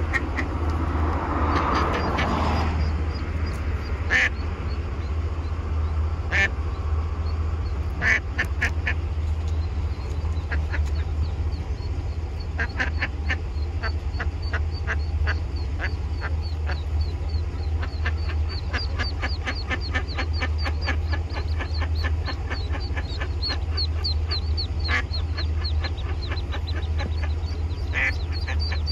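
Ducklings peeping inside a storm drain: rapid high peeps that grow thicker from about halfway through, mixed with a mother duck's short quacks now and then. A steady low hum runs underneath.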